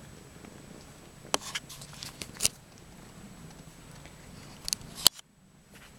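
Domestic cat purring steadily. Sharp clicks and rustles come twice, about a second and a half in and again around five seconds, as the cat's fur and body brush close against the microphone.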